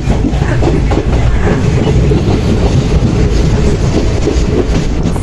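Passenger train running along the rails, heard from an open coach door: a steady loud rumble with rapid wheel clatter.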